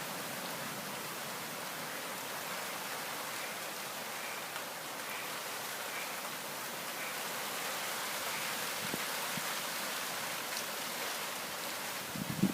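Steady hiss of heavy rain falling in a thunderstorm, with a couple of soft knocks near the end.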